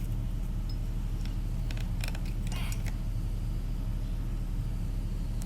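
Steady low background rumble, with a few light metallic clicks about two seconds in from small alternator parts being handled and fitted.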